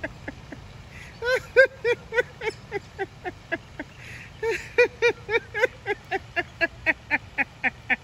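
Ducks calling in a fast, even series of short quacks, about four a second, with two louder runs.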